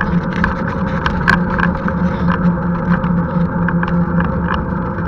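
Handcycle rolling along a tarmac road: a steady hum from the tyres and drivetrain, with frequent small clicks and rattles.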